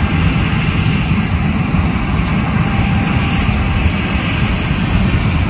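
John Deere S780 combine running while harvesting soybeans: a steady mechanical drone, mixed with the low rumble of wind on the microphone.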